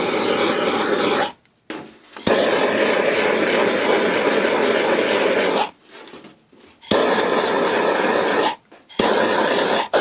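Hand-held gas torch flame running with a steady rushing hiss and a faint steady tone, warming a cold plastic chainsaw cover. The hiss cuts off abruptly three times and comes back each time.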